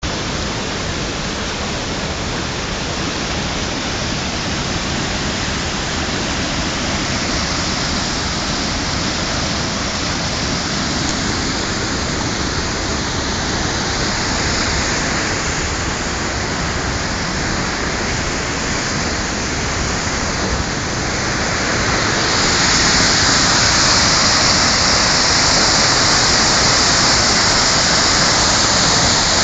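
A beck (small stream) in flood, its water rushing steadily; the rush grows louder and hissier about three-quarters of the way through.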